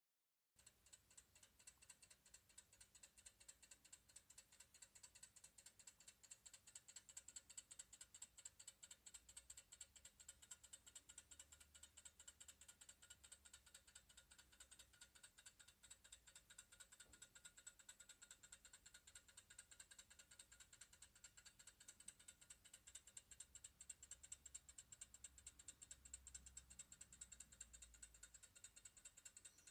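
Brass English dial clock fusee movement running on its own, its escapement ticking faintly in a rapid, even beat.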